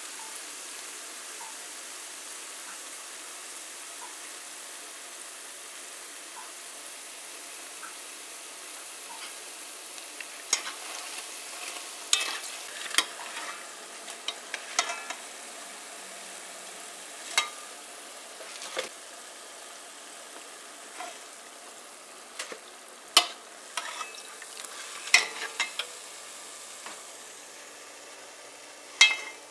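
Vegetable pakoras deep-frying in a pot of hot oil, giving a steady sizzle. From about ten seconds in, sharp clinks and scrapes break in as a spoon knocks against the pot while the fritters are lifted out.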